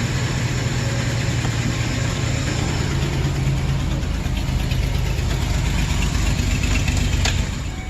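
A 2008 Chevrolet Express van's misfiring engine idling with steady low rumble, shortly after starting. A sharp click comes near the end, and the sound then drops away.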